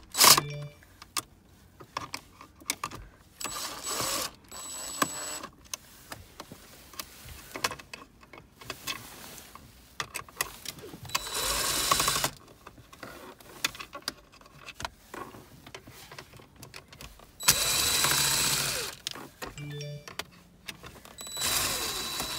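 DeWalt 18V cordless drill-driver with a long bit running in short spurts, about five of a second or so each, backing screws out of plastic car console trim. Small clicks and rattles of handling come between the runs.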